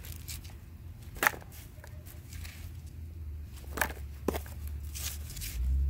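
Damp garden soil being scooped and handled, with a few sharp knocks, likely on the plastic tub, the loudest about a second in and two more near four seconds. A steady low rumble runs underneath.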